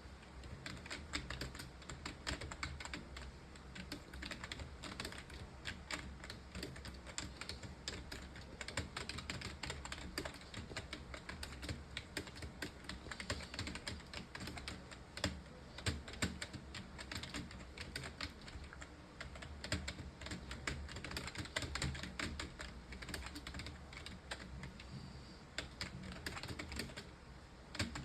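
Rapid, continuous typing on a computer keyboard, keys clicking in a fast, irregular patter, with a low steady hum beneath.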